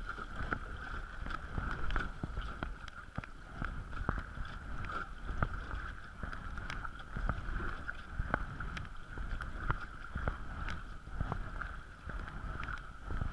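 Kayak being paddled down a shallow creek, heard from the deck: a steady rush of moving water with irregular knocks and splashes from the paddle strokes, and low wind rumble on the microphone.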